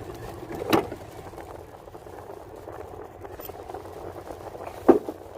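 Steady rush of wind and surf, broken by two sharp knocks, one about a second in and a louder one near the end.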